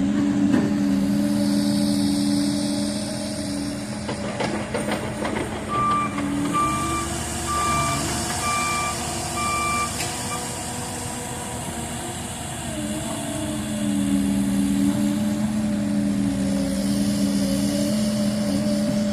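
Diesel excavator engine running steadily, its pitch shifting up for several seconds in the middle as it works, with a travel alarm beeping five times about a second apart. A short burst of clattering comes about four seconds in.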